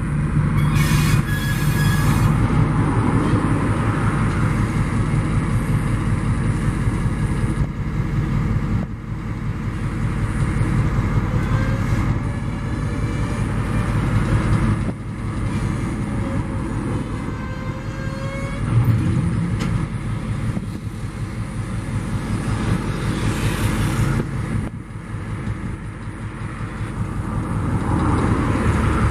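ALCO diesel locomotive's engine running steadily as the locomotive moves slowly on a switching move, with faint squeals from the wheels midway.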